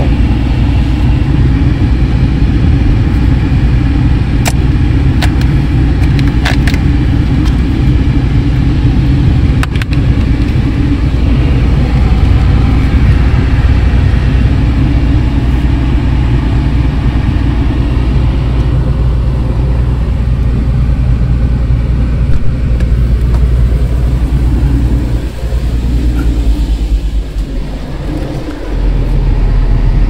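Volkswagen Passat R36's climate-control blower running at maximum fan speed on recirculation, a steady rush of air over the low hum of the idling engine. A few faint clicks come in the first ten seconds, and the low hum shifts near the end.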